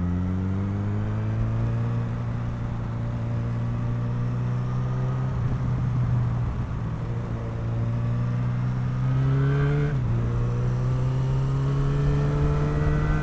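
Motorcycle engine heard from on the bike, pulling with its pitch slowly rising for about ten seconds, then dropping sharply at a gear change and climbing again, with low wind rumble on the microphone.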